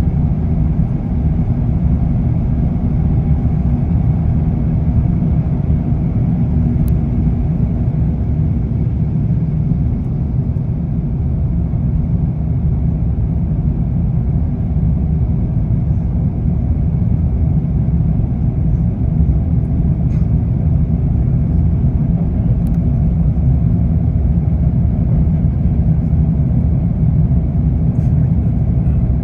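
Steady low rumble in the passenger cabin of an Airbus A350-900, its Rolls-Royce Trent XWB engines at takeoff power with air rushing past as the jet climbs away after the takeoff roll.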